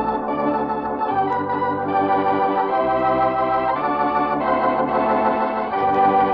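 Organ music bridge: sustained organ chords that change every second or so, the transition that marks a scene change in an old-time radio drama.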